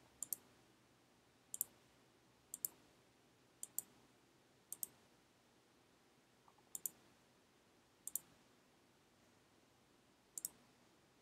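Computer mouse button clicked eight times, one to two seconds apart, each a sharp press-and-release double click.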